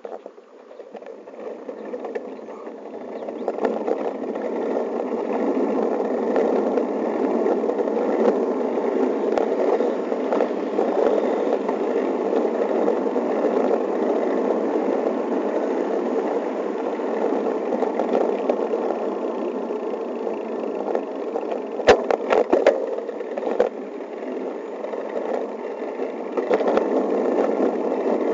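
Wind rushing over the camera microphone, with tyre and road noise, as a bicycle pulls away from a stop and then rides on steadily. A short cluster of sharp rattles comes about 22 seconds in.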